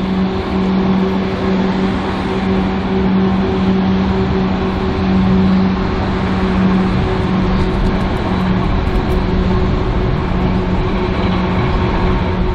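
Street traffic and a vintage W2-class electric tram moving along the road, heard as a steady rumble. A low hum runs under it and comes and goes every second or two, fading after about seven seconds.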